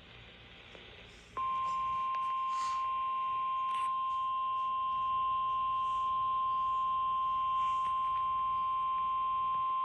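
NOAA Weather Radio's 1050 Hz warning alarm tone: after a second or so of faint radio hiss, one long, steady, unbroken beep begins and holds. It is the alert signal that precedes an emergency message, here a severe thunderstorm watch.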